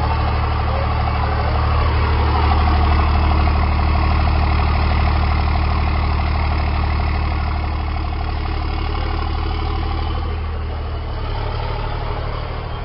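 Diesel truck engines idling through straight-pipe exhausts, a steady low rumble with a fast even pulse. The sound eases slightly near the end.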